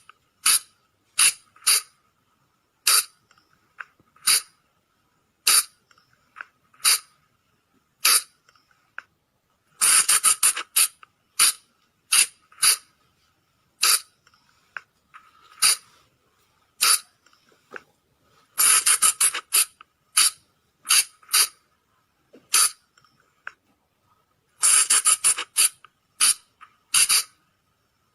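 Colugo (flying lemur) calls: sharp, shrill squeaks, some single and some in quick rapid-fire runs of several, repeating every second or so with short pauses between.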